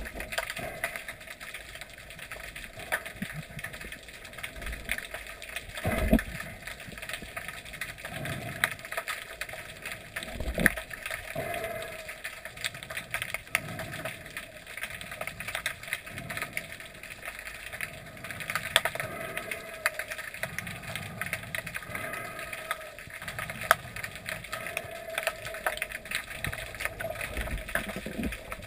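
Underwater sound picked up by a GoPro in its waterproof housing: a constant crackle of small clicks, with a few dull low thumps, the loudest about six seconds in and another near ten and a half seconds.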